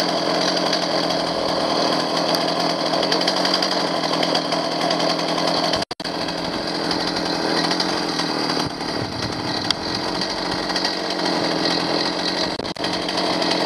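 Stihl 029 chainsaw's two-stroke engine running steadily with its top cover off; it keeps running because the broken-off choke lever leaves no way to switch it off. The sound drops out for a split second about six seconds in.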